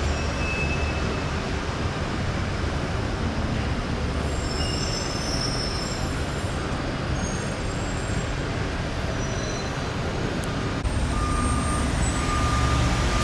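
Steady rumble of passing vehicles, with a few faint high-pitched squeals about halfway through.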